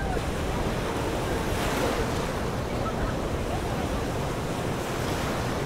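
Steady rush of wind and choppy sea water, with wind buffeting the microphone.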